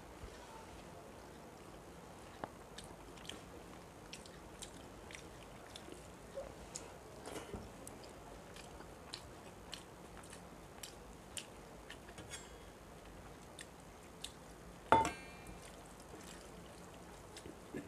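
Eating by hand: faint chewing and small mouth clicks, with fingers mixing rice and fish curry on a steel plate. One louder, sharp sound about three seconds before the end.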